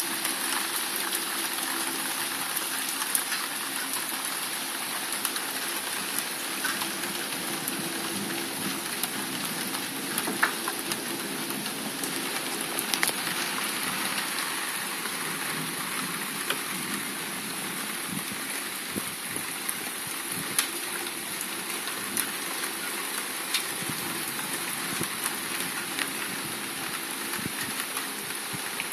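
Steady rain falling during a thunderstorm, with many sharp ticks of drops striking nearby surfaces.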